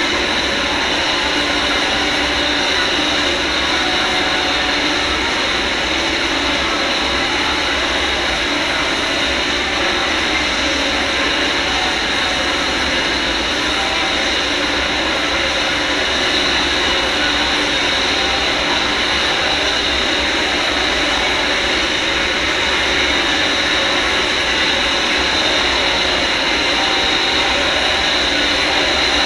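Steady, unbroken dense rush of mixed sound, even in level throughout, from the video installation's soundtrack.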